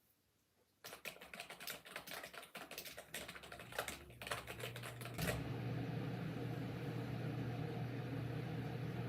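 Typing on a computer keyboard: separate clicky keystrokes start about a second in and turn into a fast, continuous clatter from about five seconds, with a low steady hum underneath.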